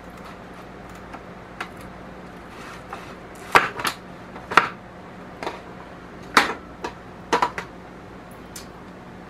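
Irregular sharp knocks and clicks of kitchen work: utensils tapping on a cutting board and cookware while ribs are cut and handled, about a dozen strikes, the loudest in the middle. A faint steady hum runs underneath.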